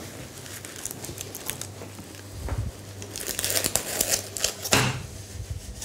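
Baking paper under a hot baked tart crinkling and rustling as it is handled in padded oven mitts, with light clicks and one sharper knock near the end.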